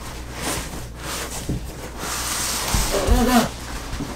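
A heavy cardboard mattress box being tipped upright and shifted on the floor: scraping and rustling of the box, with low thuds a little past halfway and a brief low vocal sound among them.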